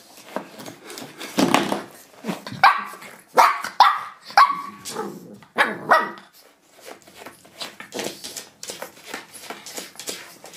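Shih Tzu puppy barking, about half a dozen short sharp barks in the first six seconds, followed by a run of quieter quick clicks and taps.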